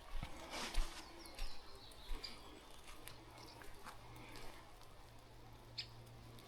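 Footsteps squelching on a wet, muddy path, with scattered raindrop ticks and drips. A bird gives a brief high, falling call about a second in.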